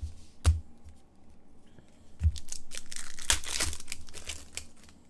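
Foil hockey card pack being torn open and crinkled by hand. A sharp tick comes about half a second in, then the wrapper crackles loudly from about two seconds in and fades out.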